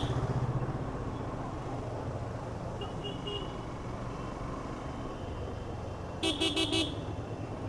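Yamaha FZ motorcycle engine running low and steady while riding in traffic, with a vehicle horn sounding a quick series of short toots about six seconds in.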